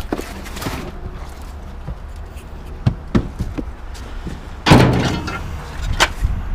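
A few light knocks, then one loud bang a little under five seconds in and a last knock about a second later, over a steady low rumble.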